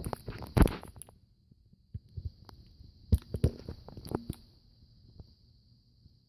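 Handling noise of a USB-C cord being plugged into a phone: a few sharp clicks and knocks, the loudest about half a second in and another about three seconds in, over a faint steady high-pitched hiss.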